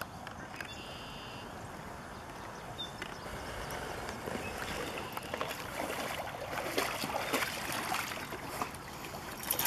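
Pond water sloshing and lapping around a swimming dog carrying a ball in its mouth, growing into splashing and dripping as the dog wades into the rocky shallows, louder from about six seconds in.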